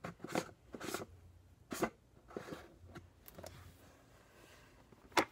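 Handling noises while setting powder is applied: several short scratchy swipes in the first three seconds, then one sharp click near the end.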